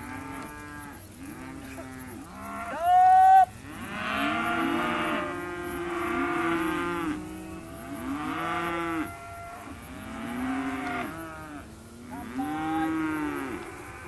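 A mob of weaner calves bawling, with many calls overlapping one after another. One louder, higher-pitched bawl comes about three seconds in.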